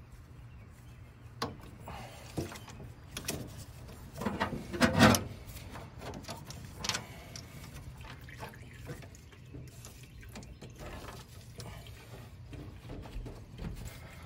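Hand-tool work on a truck's power steering box: scattered metallic clicks and scrapes of a wrench loosening the power steering line fittings, with a louder knock about five seconds in, over a steady low hum.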